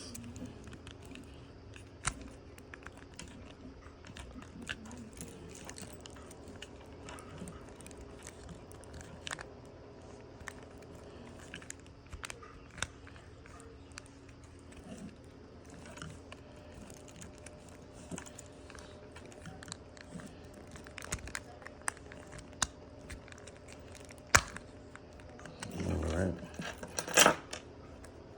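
Plastic key fob shell being pried apart with the metal key blade: scattered small clicks and scrapes of metal on plastic, with a few sharper snaps near the end as the two halves separate.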